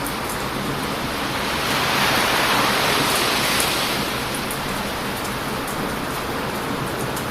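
Ocean surf breaking hard on a beach, one wave's wash swelling louder about two seconds in and easing off again by four seconds. Faint crackles from a wood bonfire tick over the top.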